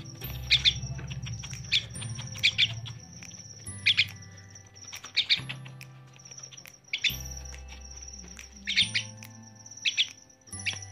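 Young jalak nias (myna) chick giving short, harsh begging calls, one every second or so, singly or in quick pairs, while it flaps its wings and gapes on a hand. Background music plays underneath.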